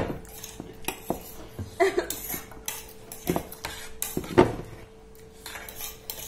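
Metal forks clinking and scraping against plates as several people eat noodles: scattered short clicks, the loudest about four seconds in.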